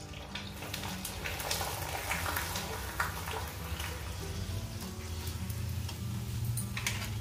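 Sabudana papad frying in a kadhai of hot oil: a steady sizzle, with clicks and scrapes of a metal slotted spoon against the pan. Soft background music with low notes plays underneath.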